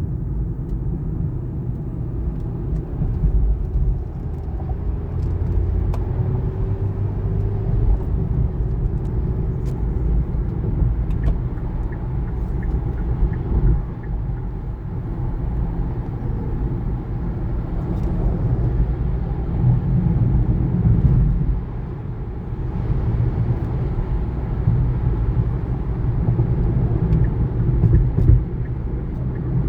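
2019 Kia Niro being driven: a steady low road-and-tyre rumble that swells and eases a little, with no high-pitched squeal standing out.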